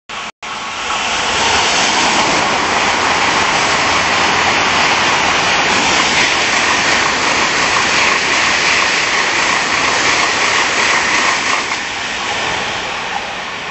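Tokaido Shinkansen bullet train passing close at high speed: a loud, steady rushing noise of wheels and air that builds within about a second, holds, and slowly fades near the end as the train moves away.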